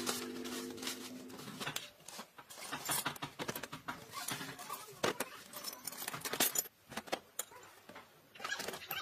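A dove cooing briefly at the start, then a run of light metallic clinks and knocks as hand tools and metal parts are handled, with two sharper knocks in the second half.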